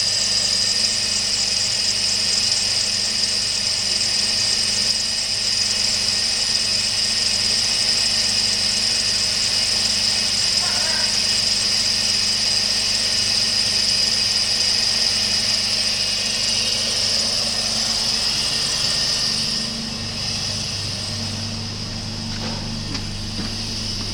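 2004 Jeep Liberty engine idling with a steady high-pitched squeal from its squeaky drive belt. About twenty seconds in, the squeal fades and the low engine hum comes through more.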